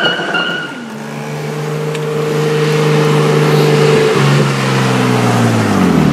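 Tyre squeal from a burnout, ending within the first second. Then the Nissan R33 GTS-t's turbocharged RB25DET straight-six holds steady high revs, steps down about four seconds in, and falls in pitch near the end as the car drives past.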